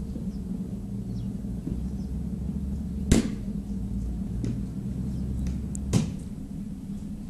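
Outdoor background: a steady low rumble, broken by two sharp clicks about three seconds and six seconds in, with a few faint short high chirps near the start.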